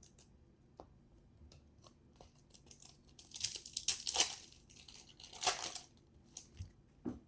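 Foil wrapper of a trading-card pack being torn open: two bouts of crinkly tearing, the first about a second long, with light ticks of handling around them.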